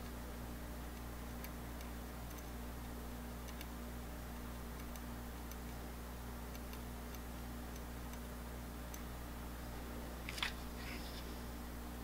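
Steady low electrical hum with a few faint scattered ticks, then one brief click and scrape about ten and a half seconds in, as a fine metal pick is handled and brought to the CPU socket's pins.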